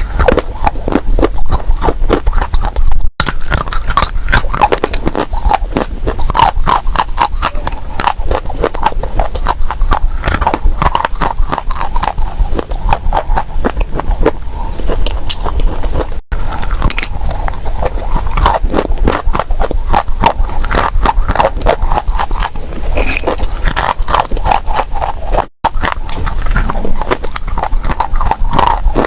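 Close-up crunching and chewing of hard, baked edible clay: a dense stream of rapid, crisp crackles from bite after bite. The sound drops out briefly three times, at edits.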